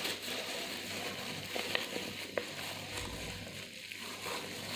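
Faint handling noise with a few small clicks and taps, as hair-dye colorant is squeezed out of a plastic sachet.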